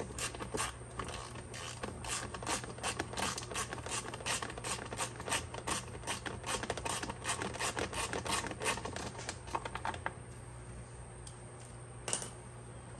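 Hand ratchet clicking rapidly as a 10 mm bolt is backed out. The clicking stops about ten seconds in, and a couple of single clicks follow near the end.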